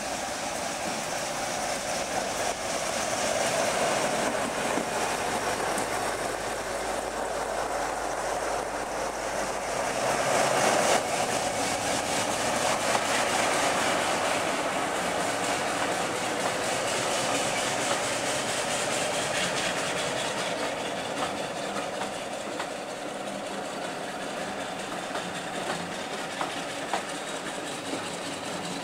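Class 47 diesel locomotive D1566's Sulzer twelve-cylinder engine running under power as it hauls a train of coaches past, loudest about ten seconds in. Near the end the coaches roll by with their wheels clicking over the rail joints.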